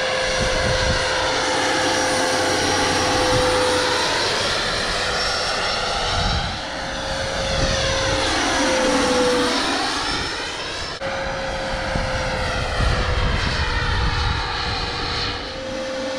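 Radio-controlled scale model helicopter flying, its rotor and drive giving a steady whine whose sound sweeps down and back up around nine seconds in as it passes. Wind rumbles on the microphone underneath.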